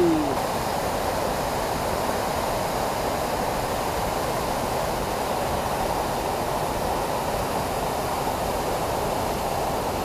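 Steady rushing of a waterfall cascading down a rock face into a plunge pool.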